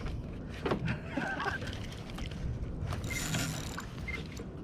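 Wind buffeting the microphone on a fishing kayak at sea, with a few small knocks from rods and tackle being handled and a short hiss about three seconds in.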